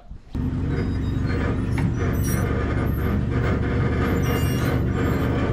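A motor vehicle's engine running steadily, cutting in suddenly just after the start.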